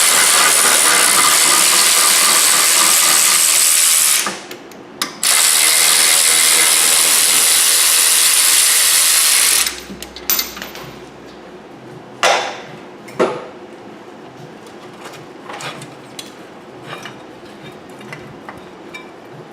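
Pneumatic air ratchet running in two long, loud bursts, spinning out the brake caliper bolts, followed by two sharp metal clanks as parts are handled.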